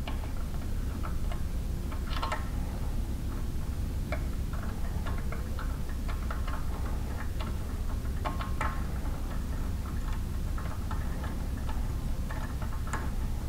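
A 1/4-28 tap being turned by hand into a drilled hole in a belt grinder's frame, cutting threads: irregular small clicks and short squeaks, over a steady low hum.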